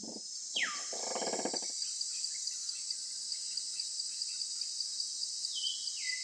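Jungle soundscape: a steady, high chorus of insects throughout. About half a second in, a loud cry glides sharply down and breaks into a rough, buzzy burst lasting about a second. Near the end come a couple of short stepped chirps.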